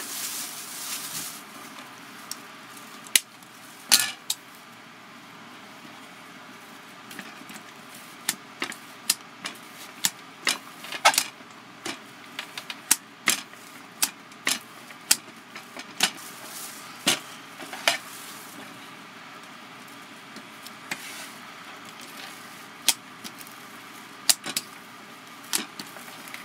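Hand-held multi-blade meat tenderizer punched again and again into a raw beef steak, each stroke a sharp click or tap as the blades go through the meat and strike the wooden cutting board. The strokes come irregularly, about one or two a second.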